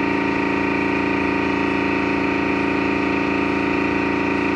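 A motor-driven machine running steadily at one constant pitch, with no change in speed or level.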